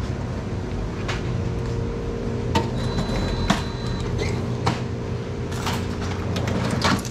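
Convenience-store checkout counter: a steady low hum with scattered short clicks and knocks as the cashier works at the register, and a faint high tone lasting about a second, about three seconds in.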